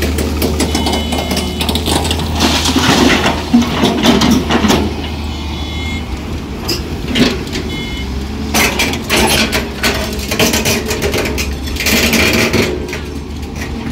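Mahindra 475 DI tractor's diesel engine idling steadily, with loads of soil and clods clattering and thudding into a steel tractor trolley as it is filled. The clattering comes in two spells, one a few seconds in and a longer one in the second half.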